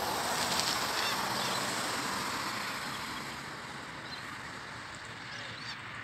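Black cockatoos giving harsh, rasping calls, loudest in the first second and fading away over the next few seconds, with a few faint short chirps later on.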